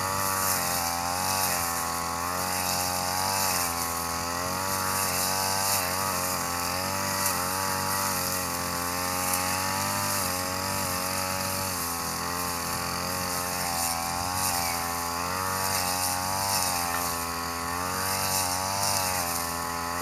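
Backpack brush cutter's small engine running at working speed while cutting long grass. Its pitch wavers up and down again and again as the load changes.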